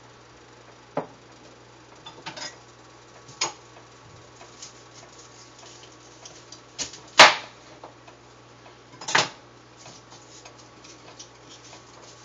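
Knife chopping asparagus in half on a cutting board: a few sharp knocks, with one loud big chop about seven seconds in.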